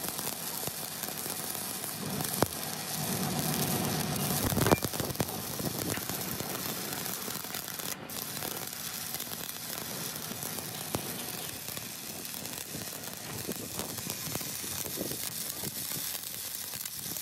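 Stick (manual arc) welding: the electrode arc crackling and sizzling steadily as weld is built up on a worn excavator bucket pin, with a sharp crack about five seconds in.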